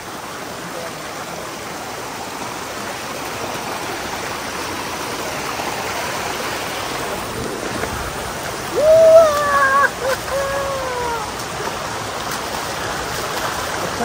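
Steady rush of flowing water that grows gradually louder. About nine seconds in, a person's voice calls out loudly for about two seconds, its pitch falling.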